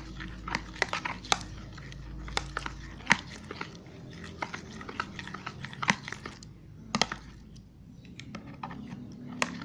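A spoon stirring thickening slime in a bowl: irregular sticky clicks and squelches, with sharper ticks as the spoon knocks the bowl, the slime clumping as the activator takes hold.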